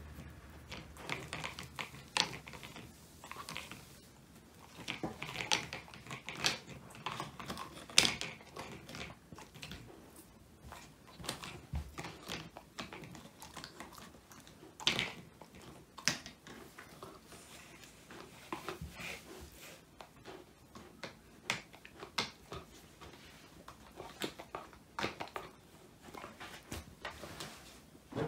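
Old English Sheepdog puppy chewing a whole quail, the bones crunching in quick, irregular crisp cracks, with louder snaps about eight and fifteen seconds in.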